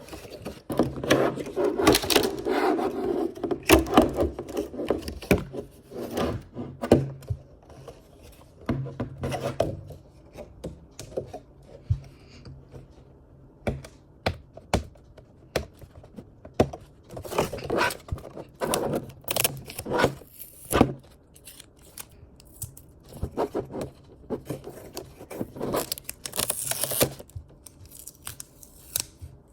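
Blind-box toy packaging being handled and opened by hand: irregular taps, scrapes and rustles of cardboard and plastic wrap, with several louder tearing or crinkling bursts.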